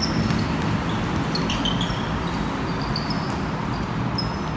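Steady background noise of a pickup basketball game, with a scatter of short, high sneaker squeaks on the court floor.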